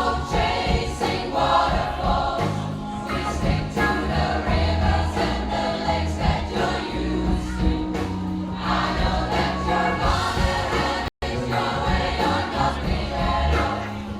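A pop choir singing with instrumental accompaniment, a steady bass line and a beat. The sound cuts out completely for a split second about eleven seconds in.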